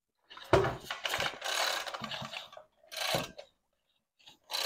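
Ryobi two-stroke trimmer engine being worked over by hand with its flywheel held, making irregular mechanical clicks and rattles: a sharp click about half a second in, a couple of seconds of rattling, a short burst about three seconds in and another click near the end. The owner takes the flywheel's ability to stay put while the shaft turns for a broken flywheel key.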